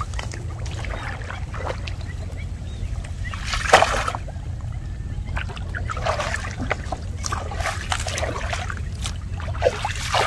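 Water sloshing and splashing as a person wades into a muddy pond and moves through it, in several short bursts, the loudest about four seconds in, over a steady low rumble.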